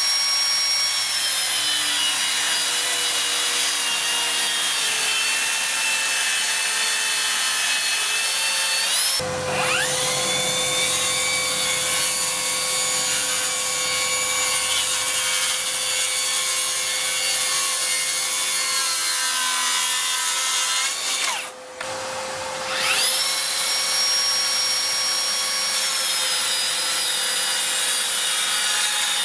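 Cordless 18V track saws, a Metabo and a Milwaukee M18, running along a guide rail while making bevel cuts through board: a steady high motor whine over the noise of the blade cutting. The sound breaks off and a saw spins up again about a third of the way in. Near three-quarters through, a saw winds down and then spins up once more.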